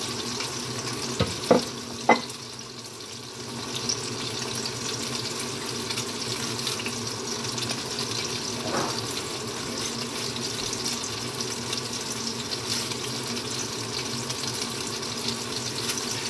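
Steady hissing sizzle of tofu frying in a pan on a gas stove, with two sharp knocks about a second and a half and two seconds in.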